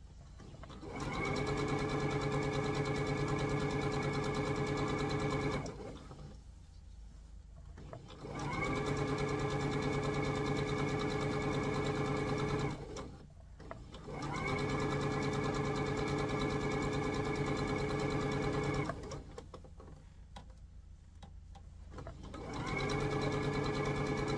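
Computerized domestic sewing machine stitching in four runs of a few seconds each, every run speeding up over about a second to a steady pace, with short pauses between.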